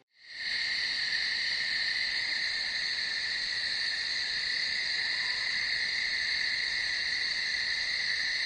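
Steady chorus of night insects, a continuous high-pitched chirring that fades in within the first half second and holds at an even level.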